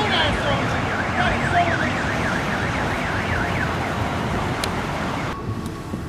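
Police siren in a fast yelp, its pitch swinging up and down about two to three times a second for a few seconds over steady street traffic noise.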